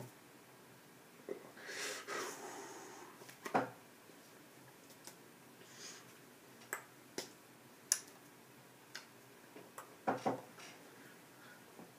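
Scattered sharp clicks made by a person, about a dozen at uneven intervals, with a breathy blow about two seconds in; the loudest click comes about three and a half seconds in and a quick cluster near the end.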